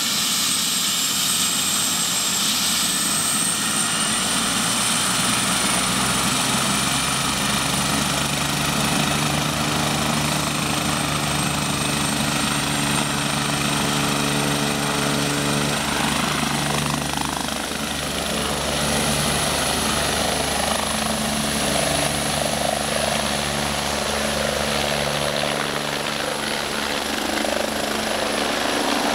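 BK 117 twin-turbine helicopter running up and lifting off: a high turbine whine that rises in pitch a few seconds in and again about two-thirds of the way through as power comes up for takeoff, over the steady beat of the main rotor blades.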